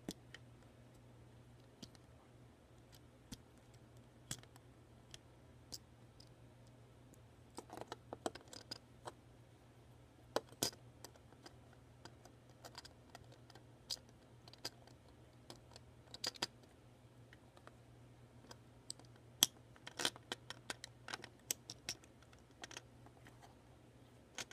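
Plastic Lego bricks clicking and tapping as they are handled and pressed together: scattered sharp clicks, with quick clusters of clicks in several places. A faint steady low hum runs underneath.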